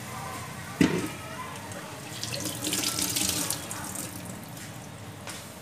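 A sharp knock about a second in, then water pouring in a short hissing stream for about a second and a half: a little water being added to the fried spice masala.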